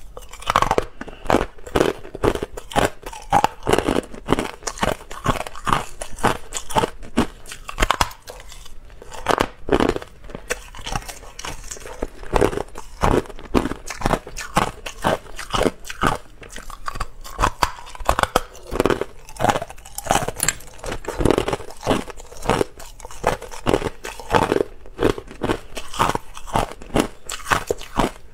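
Hard clear ice being bitten and chewed close to a lapel microphone: a dense run of sharp, irregular crunches and cracks.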